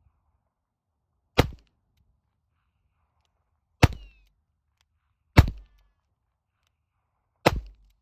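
Four shots from a High Standard .22 rimfire nine-shot revolver, fired one at a time at an uneven pace, each a sharp crack with a short tail. A brief faint whine follows the second shot.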